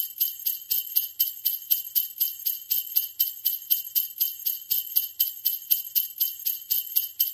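Sleigh bells shaken in a steady rhythm, about four shakes a second: bright jingling with nothing else under it.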